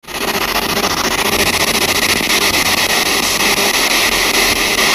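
Spirit box (ghost box) radio sweeping the band: a loud, steady hiss of static, chopped into rapid even pulses as it jumps from frequency to frequency.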